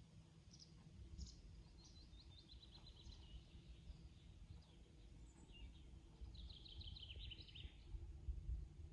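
A small songbird sings two phrases, each a quick run of short high notes falling in pitch, over a faint low rumble.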